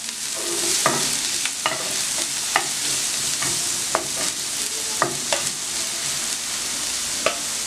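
Chopped onion, green chilli and ginger-garlic sizzling in oil in a nonstick frying pan as a spatula stirs them. There is a steady sizzle, with a sharp click of the spatula against the pan every second or so.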